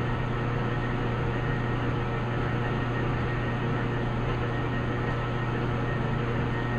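Metal lathe running steadily under power during a knurling pass on a steel workpiece, its motor giving a constant hum with a rushing mechanical noise.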